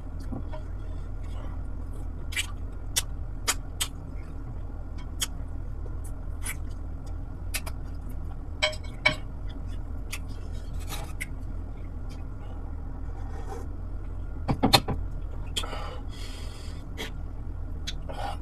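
Eating by hand from a glass dish of fish soup: scattered sharp clicks and smacks from mouth and fingers, with a brief hiss about three-quarters through, over a steady low hum.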